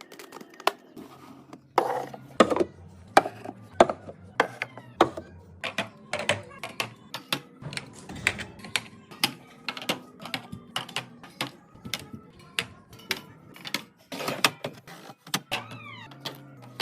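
Rapid, irregular clicks and clacks, several a second, of household items and containers being handled and set down, with a short pause about fourteen seconds in.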